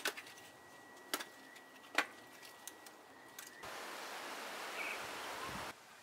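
Split firewood logs knocking together as they are stacked on a woodpile: three sharp wooden clacks in the first two seconds. Then a steady rushing outdoor noise for about two seconds that stops abruptly.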